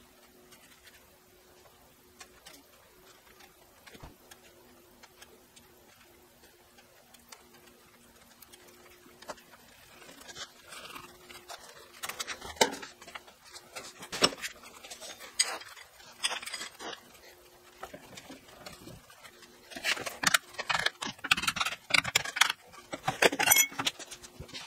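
Hand tap being turned with a tap wrench to cut threads in a steel flat bar held in a bench vise, giving irregular metallic scraping and sharp clicks. Near the end come a quick run of light hammer strikes on the bar. The first several seconds hold only a faint steady hum.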